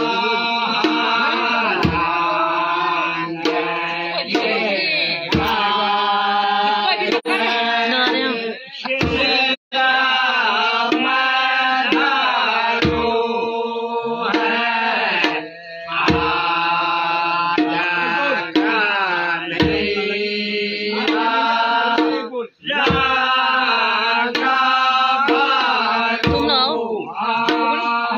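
Men singing a Kumaoni Holi song together in a chant-like melody, with a drum struck in single low beats every three to four seconds.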